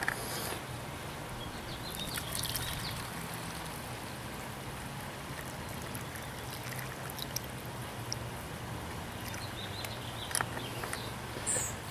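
Liquid fertilizer trickling and pouring through a plastic funnel into the reservoir of a Chapin 16 oz liquid fertilizer injector, with a few brief clicks near the start and near the end.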